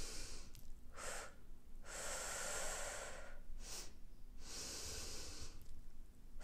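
A woman breathing slowly and audibly, in through the nose and out through the mouth, with pauses between breaths. Two full rounds are heard, each a short breath followed after a pause by a longer one over a second long. This is the calm, pausing breath taught for the transition stage of labour, to ride out the urge to push.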